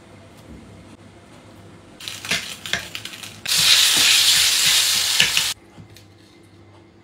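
A fork scraping and clicking against a metal pan, then spaghetti sizzling loudly in the hot pan as it is stirred with the fork. The sizzle starts about halfway through, lasts about two seconds and cuts off suddenly.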